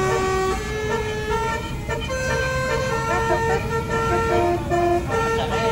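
Multi-tone bus horn (telolet) playing a tune of held notes that step from one pitch to the next about every half second to a second, over the steady low rumble of the bus running on the road, heard from inside the cab.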